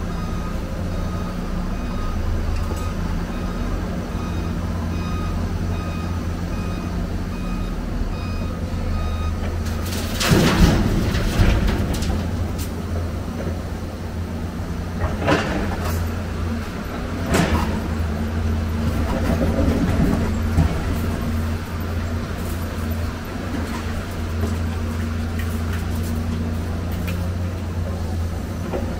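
Heavy diesel engine running steadily, with a reversing alarm beeping over and over for the first third. Then come loud clanging crashes of scrap metal being gripped and dropped in a steel truck bed: a long clatter about ten seconds in and two sharper crashes around fifteen and seventeen seconds.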